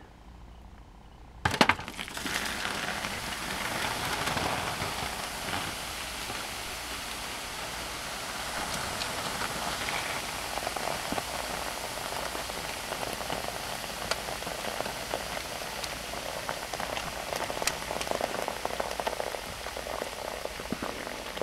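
Boiling water poured into a foil-lined dish holding baking soda, starting with a sharp splash about a second and a half in, then a steady fizzing and bubbling as the hot water reacts with the baking soda.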